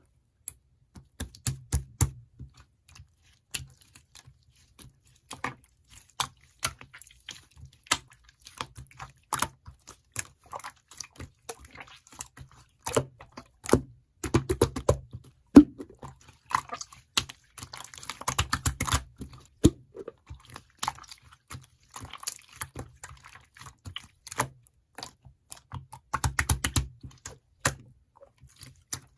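Irregular run of sharp clicks and taps, bunching into quick flurries several times, with a low rumble of handling under the busiest flurries.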